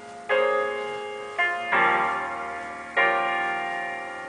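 Piano music played back through a homemade double-cone full-range loudspeaker: four chords struck in turn, each ringing on and fading away.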